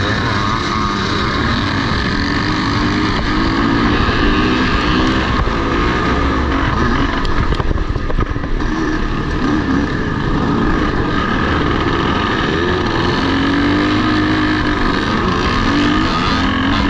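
Vintage motocross motorcycles racing, with engines revving up and falling back over and over as the bikes accelerate and shut off around the track. Several bikes run at once.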